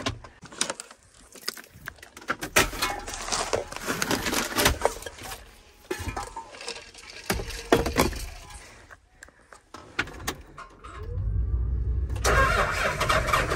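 Scattered clicks, rattles and rustling of loose items and keys in a tractor cab, then about eleven seconds in the John Deere 8530's diesel engine cranks, starts and settles into a steady run.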